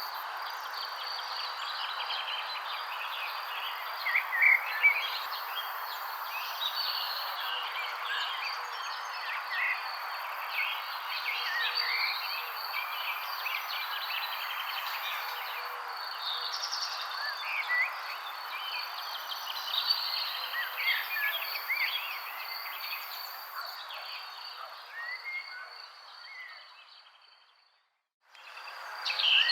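Many songbirds chirping and calling in overlapping short notes over a steady background hiss and a high continuous insect trill. Near the end the recording fades out to a moment of silence, then a new recording starts with louder bird chirps.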